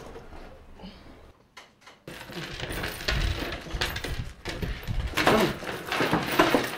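Clinking and clattering of small hard objects on a bar table, starting about two seconds in after a short lull.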